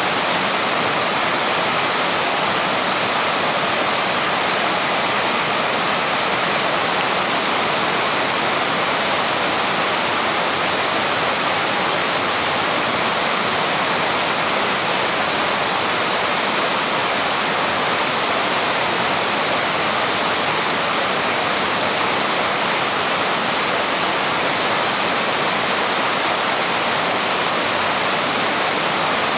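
Waterfall rushing: a steady, loud, even roar of falling water with no breaks.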